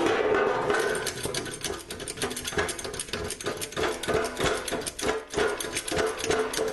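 Jack under the fuel tank being pumped up by hand: rapid, uneven metallic clicking and rattling, many clicks a second.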